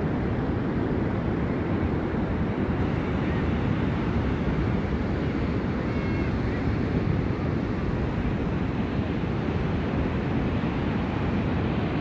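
Steady rush of wind buffeting the microphone, mixed with the wash of breaking surf.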